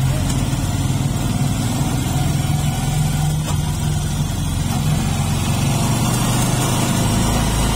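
Motorcycle engine running steadily while riding along a road, with road and wind noise.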